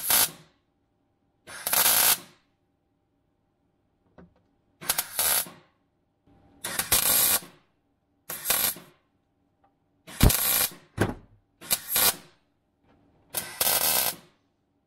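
MIG welder stitch-welding a steel repair panel into a car's rusted boot floor: about nine short bursts of arc crackle, each under a second, separated by brief pauses.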